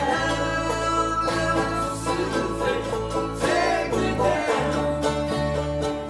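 Small acoustic string band playing a country-rock tune: banjo, mandolin and acoustic and electric guitars together.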